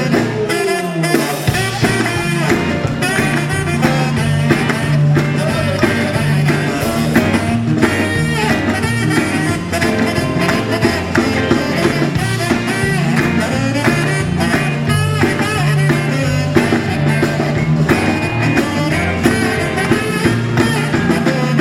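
Live rock and roll band playing an instrumental break between verses, with a bouncing bass line under guitar and drums.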